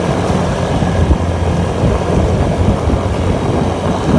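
Suzuki Raider 150 carburetted single-cylinder four-stroke motorcycle engine running steadily at road speed, with rushing wind noise on the microphone.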